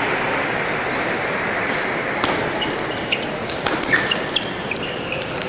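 Table tennis balls clicking off bats and tables, a scatter of sharp ticks from about two seconds in, over a steady hum of voices in a large hall.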